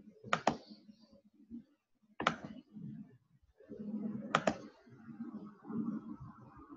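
Computer mouse clicking: a quick double click near the start, a single click about two seconds in, and another double click a little past four seconds, over faint low background noise.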